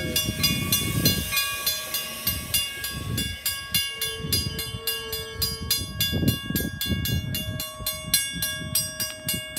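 Railroad grade-crossing bell dinging rapidly and evenly over the low, uneven rumble of a Metra bilevel commuter train. A single steady tone sounds for under two seconds about four seconds in.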